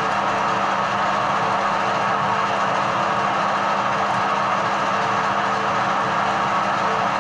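Edgwick metal lathe running steadily: a constant machine hum with a low steady tone.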